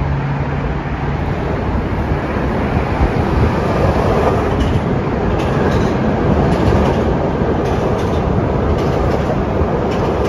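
A PATCO Speedline rapid-transit train passing close by on the bridge tracks, with a steady heavy rumble that swells about three seconds in. From about four seconds in, its wheels clack over the rail joints in uneven groups.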